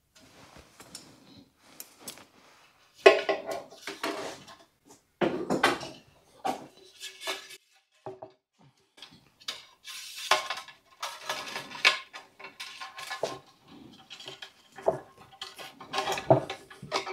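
Irregular clinking and clattering of metal tools and wire against a bonsai pot while the pot mesh and tie-in wires are fitted.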